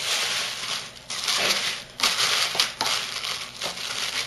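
Shopping bag and wrapping crinkling as they are handled and unwrapped, in several bursts with short pauses about one and two seconds in.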